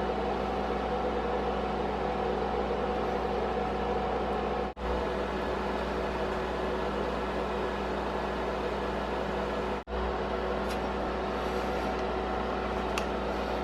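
Induction cooktop running: a steady fan whir with an electrical hum and several steady tones. The sound drops out briefly twice.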